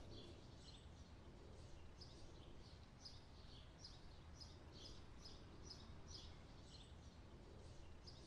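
Faint outdoor background with a small bird chirping: short high notes repeated about two to three times a second, over a low steady rumble.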